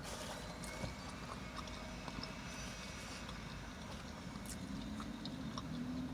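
Quiet eating sounds, scattered small clicks and crunches of chewing, over the low steady rumble of a car interior. A low hum comes in about two-thirds of the way through.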